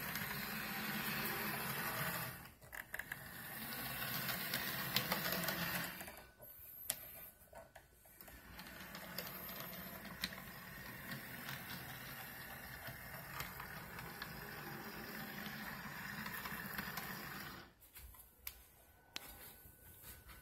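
HO-scale model diesel switcher locomotive's small electric motor and gears whirring as it runs along the track. The whir stops and starts a few times: briefly about two seconds in, for about two seconds after six seconds, and again near the end.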